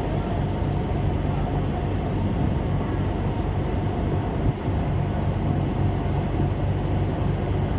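Railway station platform ambience under a large roof: a steady low hum, with no single sound standing out.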